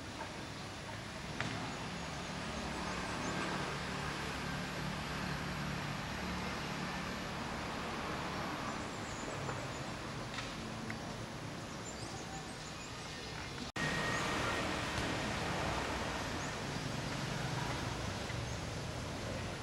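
Steady outdoor background noise: a hum of distant traffic with faint bird calls. A brief dropout about two-thirds through, where the recording is cut.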